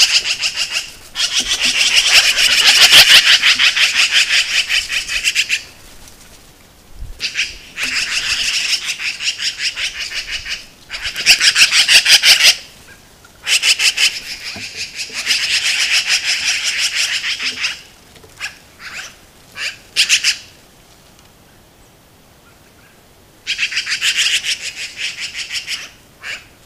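Black-billed magpies chattering: harsh, fast rattling calls in long bouts of several seconds with short pauses between, a few brief single calls, then one more bout near the end. The chatter is their scolding alarm at a red fox coming to the carcass they are feeding on.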